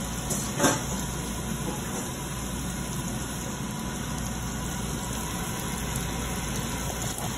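Flour-dredged chicken pieces frying in oil in a stainless steel sauté pan: a steady sizzle over a low hum, with a short clink about half a second in.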